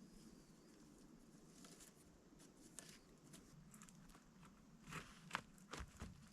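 Near silence, broken by a few faint crunches and clicks that cluster near the end.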